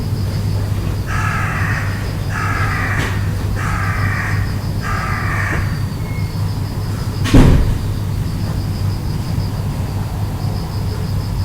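A bird calling four times, the calls about a second apart, then a single sharp thump about seven seconds in, over a steady low hum.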